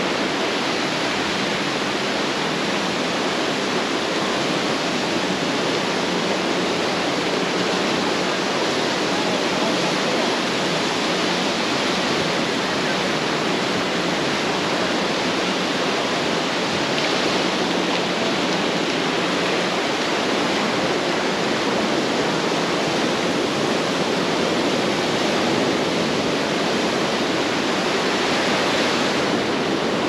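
Ocean surf breaking on the beach, a steady rush of waves without let-up.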